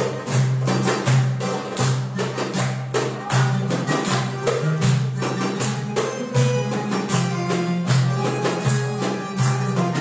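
Live traditional Arabic music on oud, accordion and hand drum: the accordion holds low sustained notes while the drum strikes a steady beat and the oud plays over it.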